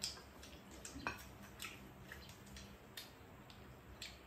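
Quiet eating sounds: metal spoons and chopsticks clicking and scraping against ceramic bowls, a handful of sharp clinks with the loudest at the start and about a second in, over soft wet mouth sounds.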